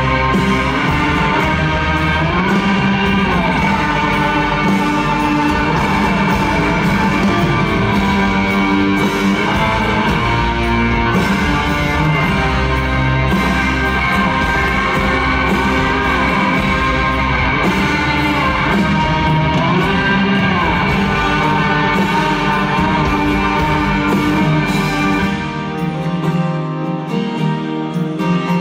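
Live rock band playing loud amplified music, with electric guitars to the fore over bass and drums. About three seconds before the end the low bass drops away and the sound thins out.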